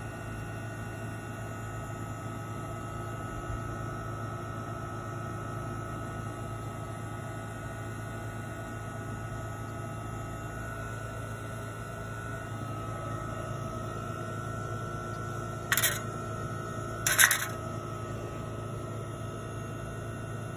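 Steady background hum with a faint high whine, broken twice, a little over a second apart, by brief sharp clattering sounds.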